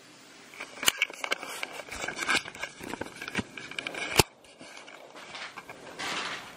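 Irregular rustling and scraping handling sounds, with a sharp click about a second in and another just after four seconds.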